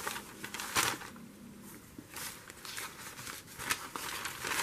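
Paper being handled, with short irregular rustles and crinkles.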